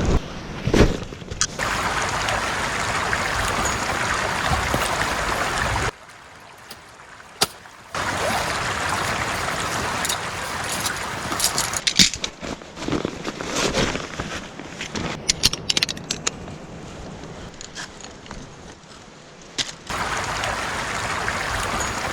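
River water rushing, a steady hiss that drops away twice for a few seconds, with scattered sharp clicks and knocks through the middle.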